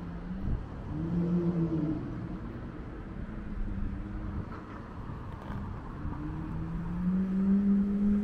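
Road traffic at an intersection: cars driving past with a low rumble of engines and tyres. Engine hum rises in pitch twice as vehicles pull away, about a second in and again from about six seconds, the second time the loudest.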